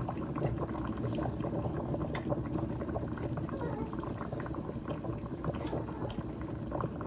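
Sinigang broth boiling in a stainless steel stockpot: a steady bubbling with many small pops.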